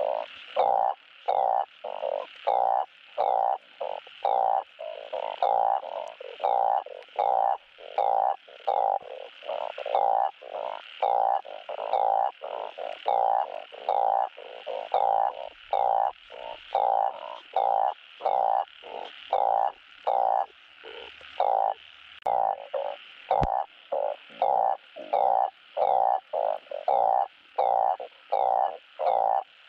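Truncate-snouted burrowing frog (Glyphoglossus molossus) calling: a fast, even series of short croaks, more than one a second, kept up without a break. These are the male's mating calls.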